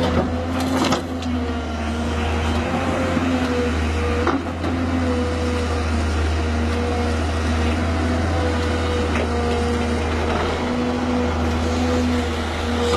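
JCB JS200 tracked excavator's diesel engine running steadily under load while it digs and swings, a low hum with a held tone over it. A couple of short knocks come in the first few seconds.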